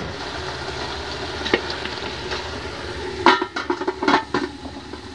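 Aluminium lid being set on a large aluminium cooking pot: a couple of light clinks, then a cluster of metallic knocks and rattles about three to four seconds in, over a steady low sizzle of chicken frying in the pot.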